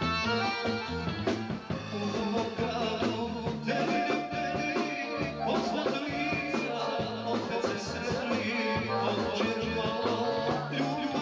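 Live band music: a male singer singing into a microphone over a band with accordion and drums.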